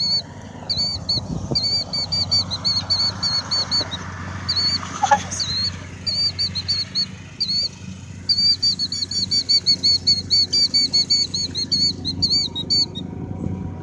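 Rapid runs of short, high-pitched chirps repeating with brief gaps, and one sweeping squeal about five seconds in.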